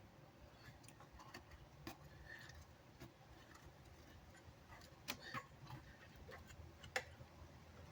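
Near silence with a few faint, scattered clicks and taps from hand work on a subwoofer under repair, the sharpest near the end.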